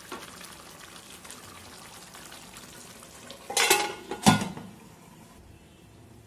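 Fish curry bubbling at a simmer in a non-stick kadai. A steel-rimmed glass lid is then set on the pan, with a scrape and a sharp clank about four seconds in. After that the simmering is quieter under the lid.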